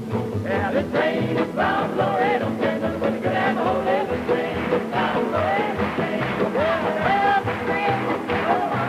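Up-tempo folk song performed live by a large folk ensemble: voices singing together over strummed acoustic instruments and a steady, pulsing bass beat.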